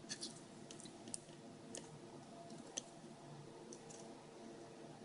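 Faint, scattered small clicks and ticks from handling the small parts and ribbon-cable connectors inside an opened Garmin GPS unit.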